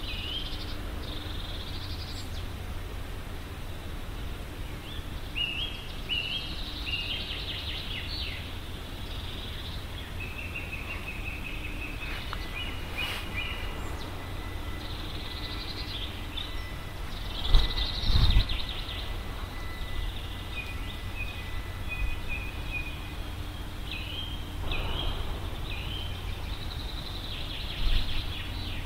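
Small songbirds chirping and singing in short, repeated phrases over a steady low rumble. A few loud low thuds come about halfway through and again near the end.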